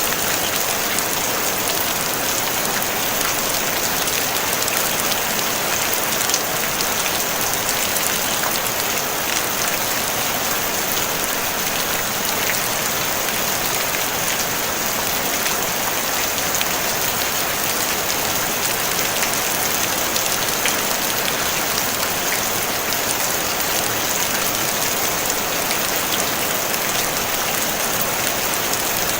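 Steady rain on a tin roof: a dense, even hiss made of countless tiny drop ticks, holding at one level throughout.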